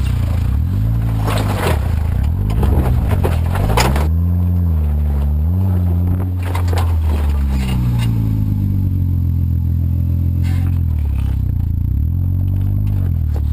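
Jeep Wrangler JK Unlimited's 3.6-litre V6 engine revving up and down repeatedly as it crawls over a rock obstacle. The tyres and underside crunch and scrape on rock, mostly in the first few seconds.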